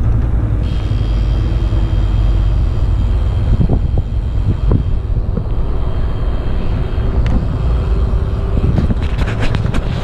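Wind buffeting the microphone as a mountain bike rolls downhill on a paved road, with a steady low rumble of wind and tyre noise, a faint thin whine through most of it, and some clicks and rattles near the end.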